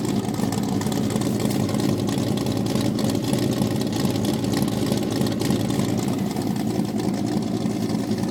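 Off-road truck's engine idling steadily.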